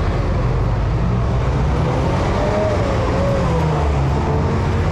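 Steady low rumble of an electric transit train running, heard from inside the car, with a motor whine that drifts up and down in pitch as it goes.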